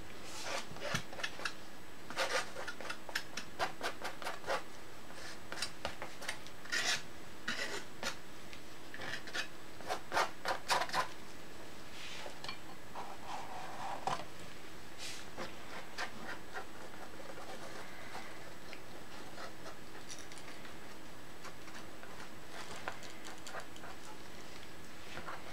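Palette knife scraping and spreading acrylic paint across a stretched canvas: a run of short, quick strokes, thick in the first half and then sparser and fainter.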